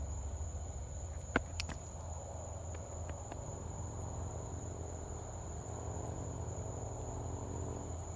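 Night insects trilling in one steady high-pitched tone, over a low steady rumble, with a couple of sharp clicks about a second and a half in.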